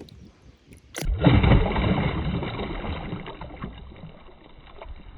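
Water splashing and sloshing around a fishing kayak, starting suddenly about a second in, loudest just after and fading away.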